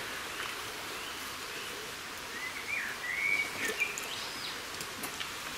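Steady rush of a flowing stream, with a bird singing a short run of whistled notes, rising and falling, about two to four seconds in.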